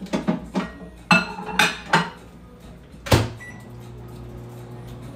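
A bowl clatters several times as it goes into a microwave oven. The door shuts with a sharp bang about three seconds in, a short beep follows, and the microwave starts up with a steady low hum.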